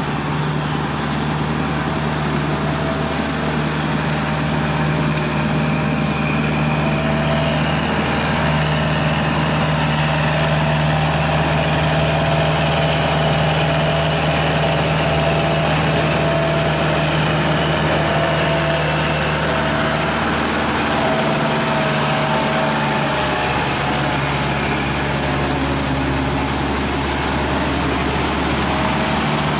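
Kubota tractor's diesel engine running steadily as it pulls a rotary tiller through a flooded rice paddy. Its note shifts slightly about two-thirds of the way through.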